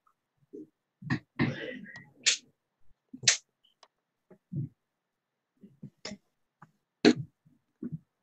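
Darts striking a bristle dartboard: a row of short, sharp thuds, three about a second apart and then two more.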